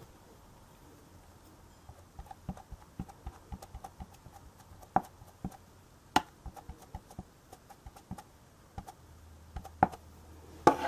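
Ink pad being tapped onto a stamp: a run of light, irregular taps and clicks, with a couple of sharper clicks about midway.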